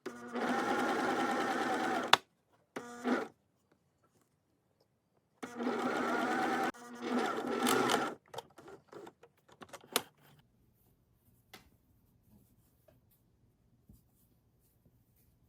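Electric sewing machine stitching fabric in three runs: about two seconds, a short burst, then nearly three seconds. A few light clicks follow.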